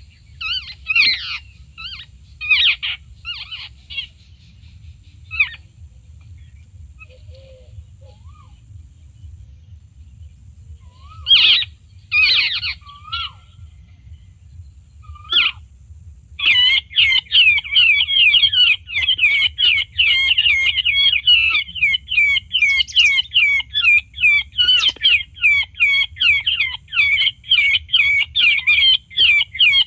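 Harsh chattering calls of charkhi birds (babblers). They come in scattered bursts at first, and about halfway through they become a continuous rapid chatter of many repeated calls, as from a whole flock.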